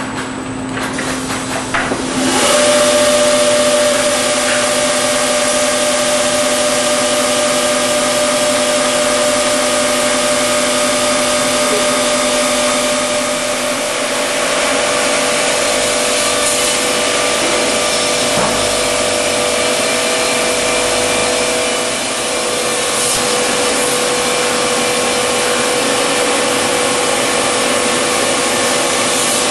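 Saw unit of an automatic lumber-package cross-cutting line running and cutting through a stacked package of boards. It is a loud, steady machine noise with a whine that starts abruptly about two seconds in.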